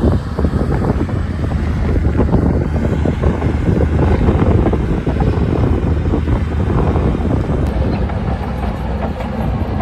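Heavy diesel earthmoving machinery working under load: a steady low engine rumble with dense, irregular clatter over it.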